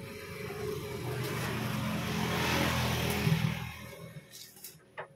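A motor vehicle's engine swelling to a peak about three seconds in and then fading away, as of a vehicle passing by.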